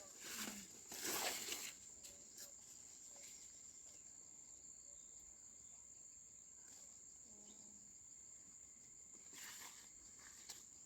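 A steady, high-pitched insect trill runs throughout. Short bursts of rustling noise come about a second in and again near the end.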